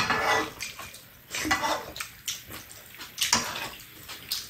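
Eating at a shared meal: metal spoons scraping and clinking against bowls and a frying pan, with chewing, in short irregular noisy bursts and a few sharp clicks.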